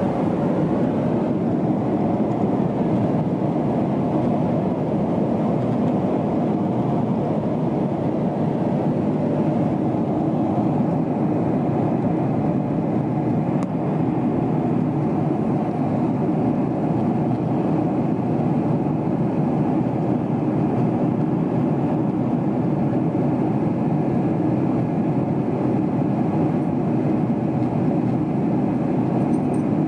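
Boeing 777-300ER cabin noise heard from a window seat during descent: a steady, even rush of airflow and engine noise.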